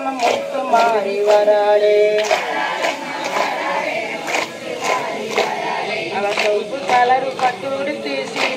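A song sung by a group of male and female voices in long held, wavering notes, with a sharp beat striking roughly once a second and crowd chatter underneath.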